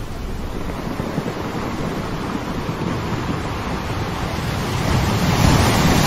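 Ocean surf washing onto a beach, a steady rush that swells louder near the end.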